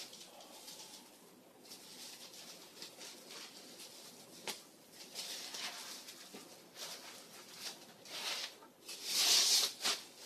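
Packing wrap rustling and crinkling in irregular bursts as it is pulled off by hand, with a sharp click about halfway through and the loudest rustle near the end.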